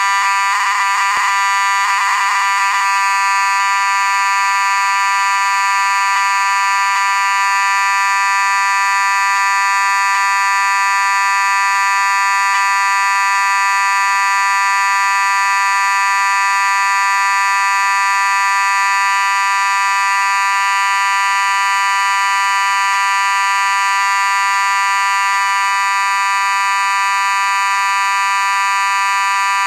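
Federal Signal Vibratone 450D fire alarm horn with the Series D1 mechanism, sounding continuously: a loud, steady buzzing horn tone, made by a circuit board pulsing the electromagnet that vibrates the diaphragm. It switches on suddenly and wavers for the first two or three seconds before settling.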